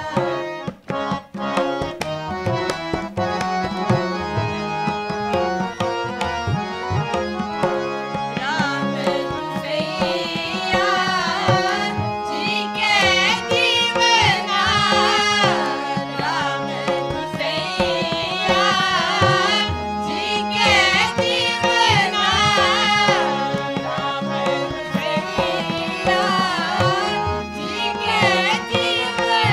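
Sikh kirtan simran: two harmoniums sounding steady held chords over a tabla beat, with voices joining in singing the chant from about eight seconds in.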